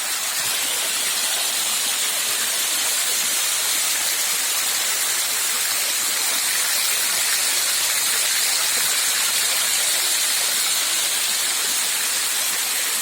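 Steady rushing hiss of falling water from a small rain-fed waterfall, with rain falling.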